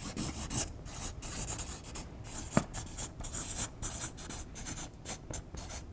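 Marker pen scratching across flip-chart paper as words are written, in a run of short, quick strokes with a sharper tick about two and a half seconds in.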